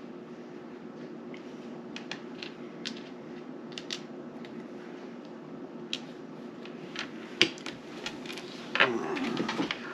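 Light, scattered clicks and taps of game pieces being handled on a table, over a steady low hum. Near the end comes a short, louder low vocal sound that falls in pitch.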